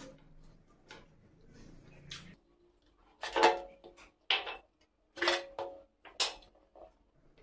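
Close-up eating sounds of a person eating sauced fried chicken: several short wet bites, chews and lip smacks in separate bursts through the second half, after a fairly quiet start.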